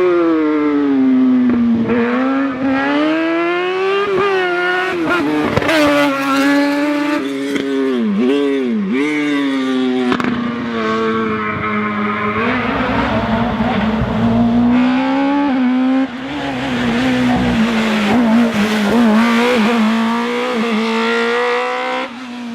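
A race car's high-revving engine, its pitch climbing and dropping again and again as it accelerates and brakes between bends, then holding steadier for the second half, with some tyre squeal.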